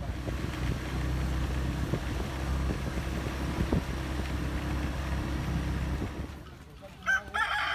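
A motor vehicle's engine runs steadily and dies away about six seconds in. A rooster starts crowing near the end.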